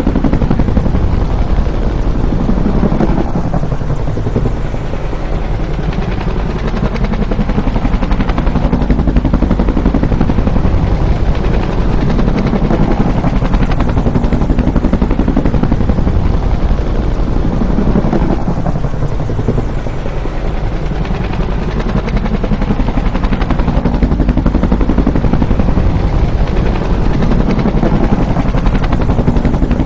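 Bell UH-1 Huey helicopter flying by, its two-bladed main rotor beating fast and steady. The tone sweeps down and back up twice, about a sixth of the way in and again about two-thirds in.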